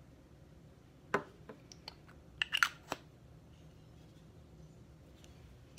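A few short clicks and taps of a small spray bottle and a makeup compact being handled, with the loudest cluster about two and a half seconds in.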